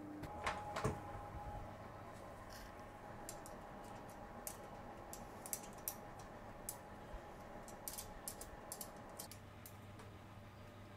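Faint, scattered clicks and light scrapes of a metal spoon against steel nuts and hot, softened PLA test pieces on a silicone mat as they are pried off the oven rack, over a low steady hum.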